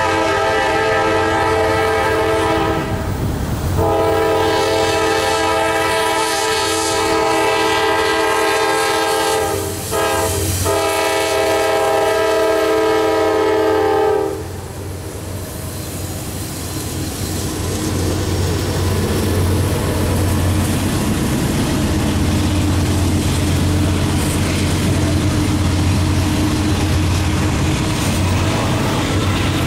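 Air horn of a Norfolk Southern GE Dash 9-40CW freight locomotive sounding the grade-crossing signal: the tail of one long blast, another long, a short, and a final long blast that cuts off about halfway through. The diesel locomotives then pass close with a steady low rumble, followed by the rolling rumble and clatter of double-stack intermodal well cars.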